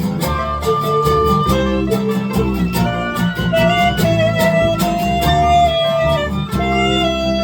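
Live folk band playing an instrumental break: a steady strummed guitar rhythm under a melody of long held, sliding notes.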